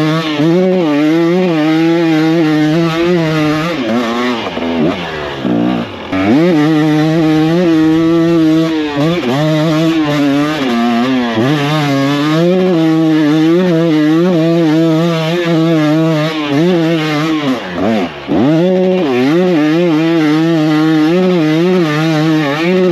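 KTM dirt bike engine running hard up a steep hill, its pitch wavering constantly with the throttle. The revs dip sharply twice, about five seconds in and again near eighteen seconds, then climb back up.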